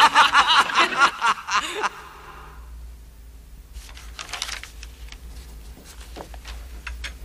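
Voices and laughter for about two seconds, then a pen scratching and tapping on paper in short, faint strokes over a low steady hum.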